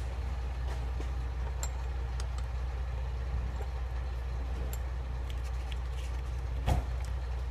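A steady low hum, with scattered light clicks and one louder knock near the end as the metal engine mount is handled on the bench.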